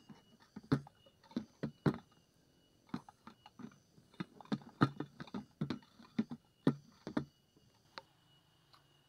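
Irregular sharp clicks and taps, some loud, as large grasshoppers and mantises knock against a clear tray. They stop about eight seconds in.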